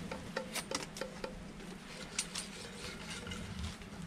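Irregular crackles and pops from a small coal cooking fire heating butter in a frying pan on a wire grate over the coals.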